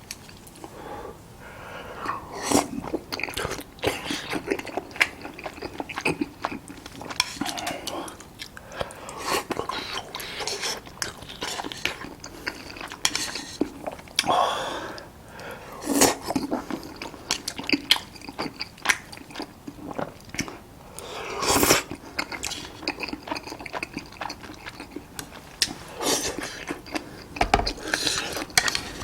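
Close-miked eating sounds: biting and chewing crispy fried chicken, with crackly crunches and occasional clinks of utensils.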